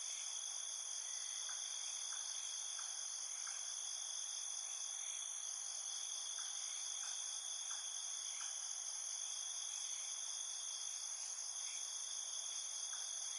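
Steady chorus of insects trilling at several high pitches at once, with faint short chirps at irregular intervals.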